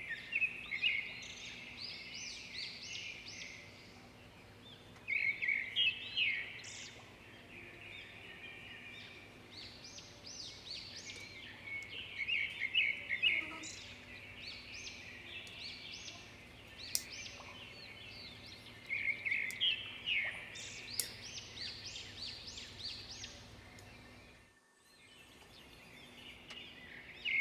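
Small birds chirping in repeated bursts of quick, high chirps, with quieter spells between, over a faint steady hum.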